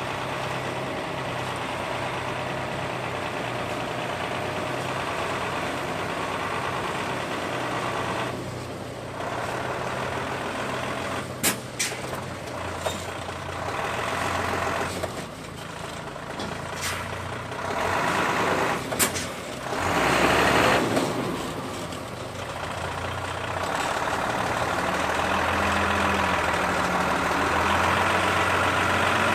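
Diesel engine of a Mitsubishi cargo truck running at low speed as the truck crawls over a rutted dirt track, its note swelling and easing with the ground, with a few sharp clicks in the middle.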